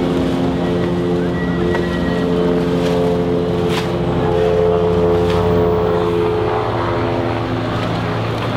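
A low, steady drone of several held tones sounding together, shifting to new pitches every couple of seconds, with a few faint clicks over it.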